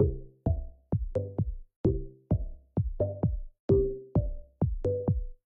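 Background electronic music with a steady drum-machine beat and short plucked notes.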